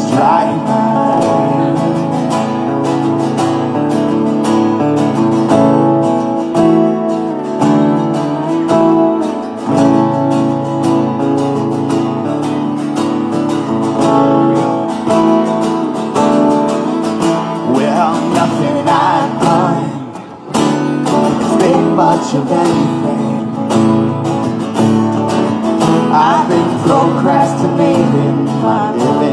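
Live acoustic guitars strumming and picking a folk-pop song, with singing heard at times and a brief break in the music about twenty seconds in.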